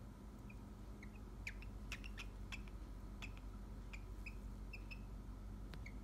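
A cockatiel giving short, sharp chirps, about a dozen scattered irregularly, most of them packed between about one and three and a half seconds in. The owner takes them for a female cockatiel's mating call.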